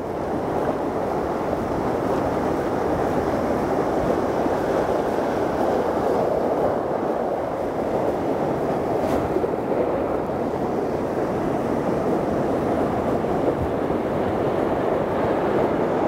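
Sea surf washing and breaking over shoreline rocks, a steady rushing noise.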